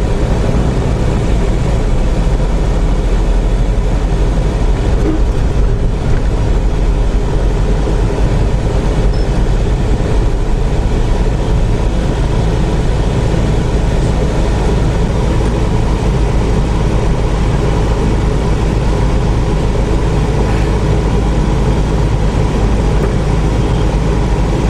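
Steady engine and road rumble of a moving car, heard from inside the cabin, with a heavy low end and no sudden events.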